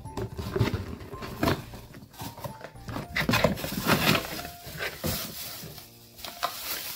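Plastic accessories of a steamer vaporizer kit being handled: irregular knocks, clatter and rustling as the parts are taken out and set down, over soft background music.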